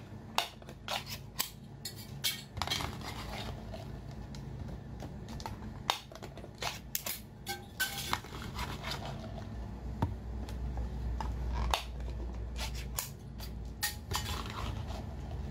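A glass jar being unscrewed and shaken so that sauce-glazed crayfish tails tip out onto a plastic tray, giving many irregular sharp clicks and clinks of lid, glass and food landing.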